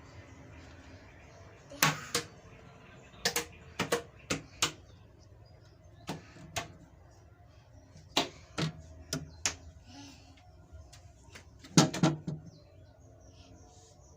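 Hard objects knocking and clicking against each other, about fifteen sharp knocks that mostly come in quick pairs, the loudest about two seconds in and near the end.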